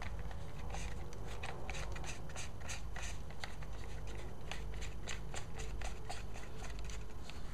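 Meike battery grip's ribbed thumbwheel being spun to drive its mounting screw into the Canon 550D's tripod socket: a run of small, irregular clicks several times a second over faint rubbing and handling of the camera body.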